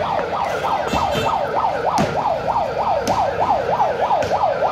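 A vehicle siren in a fast yelp, its pitch rising and falling about three and a half times a second, stopping abruptly near the end. A few sharp knocks sound behind it.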